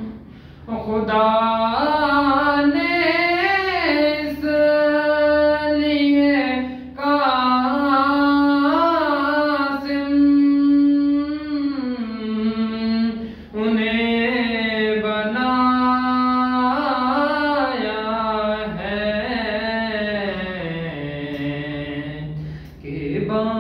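A young man singing a nauha (Shia elegy) solo and unaccompanied into a handheld microphone: long melismatic phrases with held notes that slide and bend between pitches, broken by a few brief pauses for breath.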